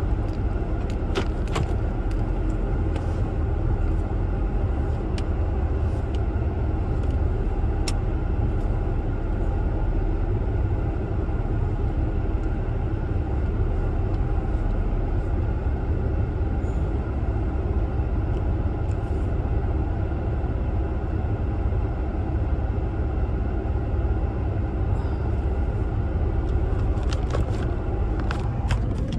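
Steady low rumble of a car heard from inside its cabin, with a few faint clicks and rustles near the start and again near the end.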